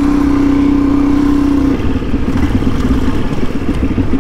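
Suzuki DR-Z400E's single-cylinder four-stroke engine running under way at steady revs. About two seconds in, the steady note gives way to a lower, uneven beat as the revs drop.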